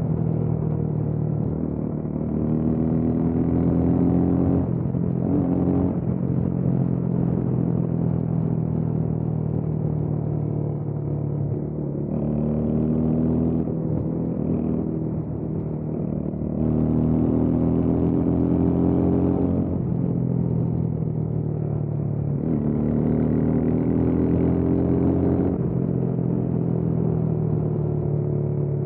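Motorcycle engine pulling through the gears while riding: its pitch climbs under acceleration and drops at each upshift, about five times, over a steady low rumble.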